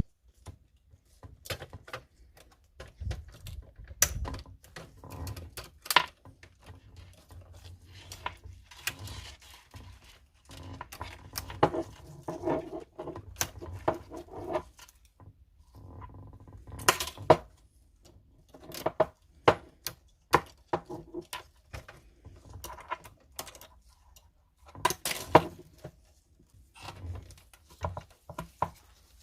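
Plastic and metal parts of a Canon printer clicking, knocking and rattling as it is taken apart by hand, in irregular bursts with short pauses between.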